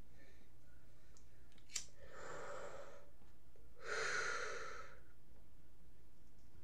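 Two long audible breaths from a man, the second one louder, with a short sharp click just before them.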